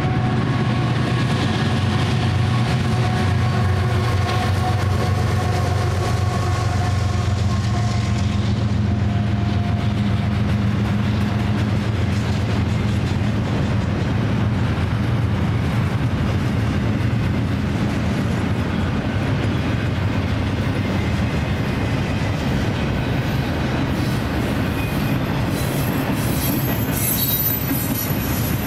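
Diesel-electric locomotives of a double-stack intermodal freight train passing close by, their engines running with a steady drone and a pitched whine that fades after about ten seconds. The container well cars then roll by with a steady rumble and wheel clatter, and a thin high wheel squeal comes in near the end.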